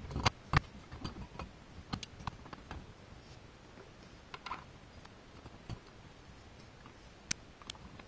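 Metal-on-metal clicks and knocks as a motorcycle clutch basket is slid onto its shaft and meshed with the gears, then the clutch hub is fitted inside it. The loudest clunks come about half a second in, followed by sparser, lighter ticks.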